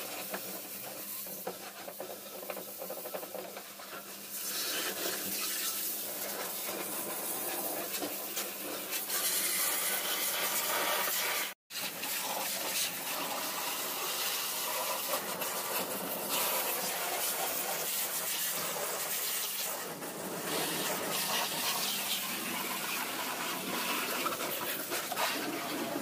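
High-pressure water jet hissing and splashing against a car's muddy door panels, sill and wheel, a steady spray that gets louder about a quarter of the way in. It cuts out for an instant a little before halfway.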